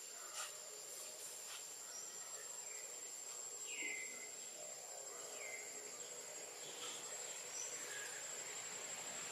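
Faint forest ambience: a steady, high-pitched insect drone, with several short, faint falling chirps scattered through it and two light clicks in the first couple of seconds.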